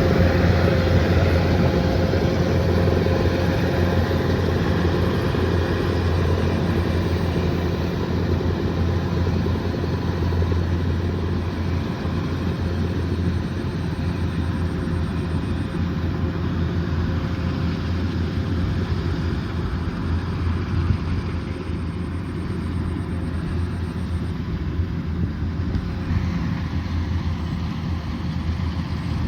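Kubota DC108X combine harvester's diesel engine and threshing machinery running steadily: a low drone with a constant whine on top, easing slightly in loudness over the stretch.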